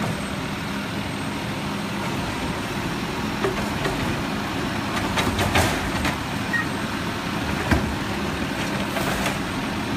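Automated side-loader garbage truck running at the curb, its diesel engine and hydraulic arm working as a trash cart is lifted and emptied into the hopper. A cluster of knocks and clatters comes about halfway through as the cart is dumped, then a single thump and more clatter near the end.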